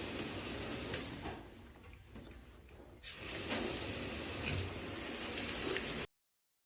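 Water spraying steadily from a handheld shower head. It dies down briefly, comes back sharply about halfway through, then cuts off abruptly near the end.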